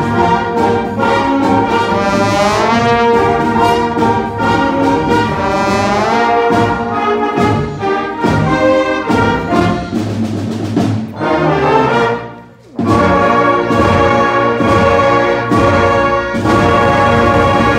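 A concert band of saxophones, trumpets, trombones and other winds playing, with the brass prominent. The music breaks off for a moment about twelve seconds in, then the full band comes back in loud on long held chords.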